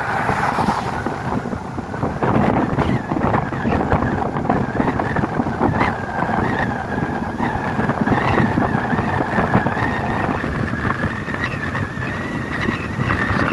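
Car driving along a wet, bumpy rural road: steady tyre and engine rumble, with an oncoming pickup passing right at the start. A thin steady high tone joins about halfway through.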